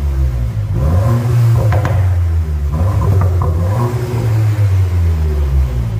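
Cupra Formentor with an ASG aftermarket sport exhaust through quad tailpipes, revved several times while standing still; the exhaust note rises and falls with each blip.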